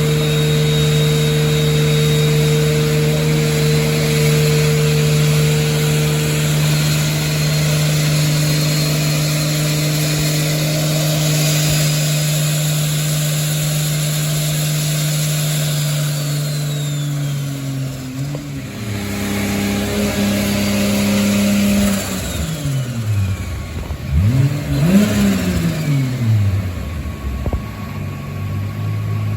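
Turbocharged Toyota 2JZ-GE VVTi inline-six in a Lexus IS300 running on a Dynapack hub dyno, held at a steady engine speed, then dropping off after about seventeen seconds. Later it is revved up and back down twice before settling to a lower steady speed.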